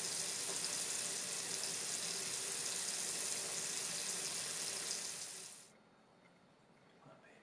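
Kitchen tap running in a steady stream into a full stainless steel sink, splashing onto the water, then shut off about five and a half seconds in.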